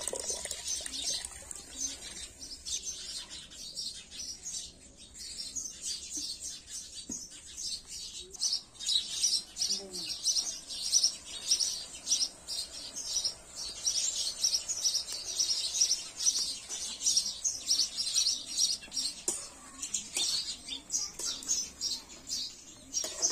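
Small birds chirping rapidly and continuously with high, quick notes. Water splashes briefly at the very start.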